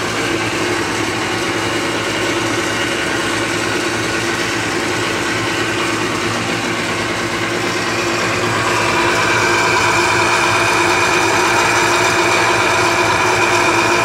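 Black+Decker countertop blender motor running steadily, blending a smoothie, a constant whine with a low hum. It grows louder and brighter about eight and a half seconds in.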